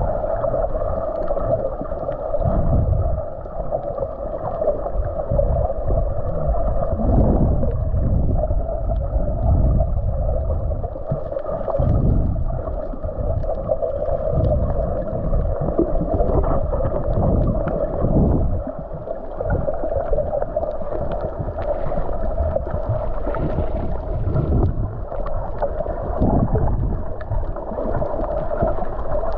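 Muffled water sloshing and gurgling against a small boat, with irregular low rumbles under a steady hum held at one pitch.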